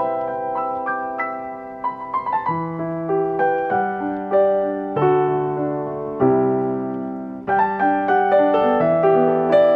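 Piano music: notes and chords struck and left to ring, with a quick run of notes about two seconds in.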